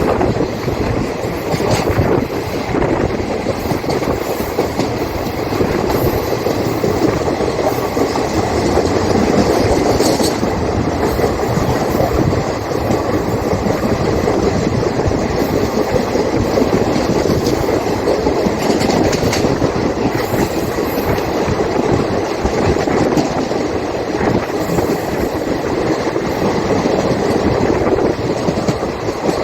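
Train running along the track: a steady rumble of wheels on rail, with clickety-clack as the wheels cross rail joints.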